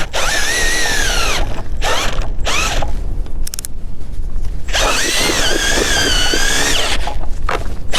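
Power ice auger drilling a test hole through pond ice. The motor whines in runs with stops between them, and its pitch sags and recovers as the bit bites. The longest run comes in the second half.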